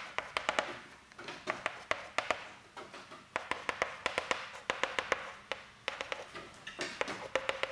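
Chalk writing on a chalkboard: quick runs of sharp taps and scratches as figures are written, with brief pauses between.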